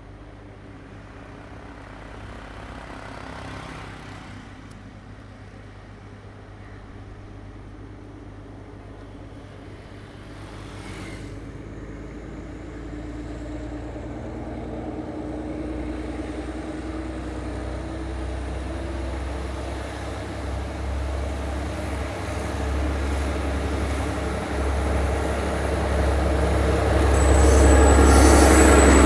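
Diesel train approaching along the line, its engine hum and running noise growing steadily louder and loudest near the end.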